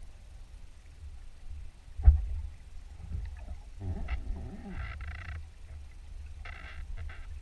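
Muffled underwater recording during spearfishing: a steady low rumble of water on the camera housing, a single sharp knock about two seconds in, then two stretches of hissing and wavering noise later on.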